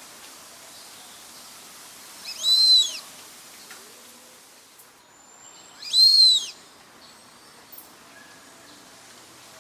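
Brazilian teal (marreca ananaí) giving two high whistled calls about three and a half seconds apart, each rising then falling in pitch.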